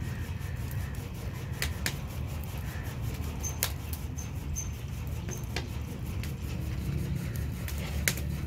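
Steady low hum of a turning potter's wheel, with a few sharp clicks scattered through it.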